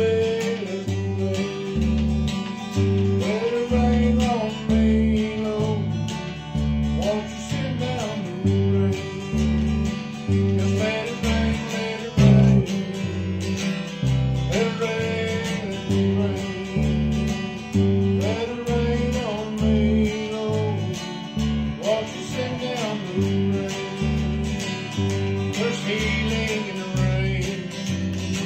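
Electric bass guitar through a Crate combo amp and an acoustic guitar playing a song together. The bass holds steady low notes that change in an even rhythm under the strummed guitar, with a melody line sliding up and down above them.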